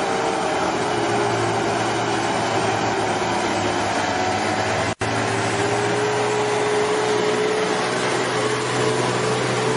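Diesel engines of Sinotruk Howo 6x4 dump trucks running steadily as the trucks drive past. The sound cuts out for an instant about halfway through.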